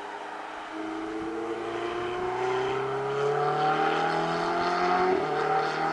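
Ferrari 488's twin-turbo V8 accelerating hard out of a corner, its note rising steadily in pitch and growing louder as the car comes past.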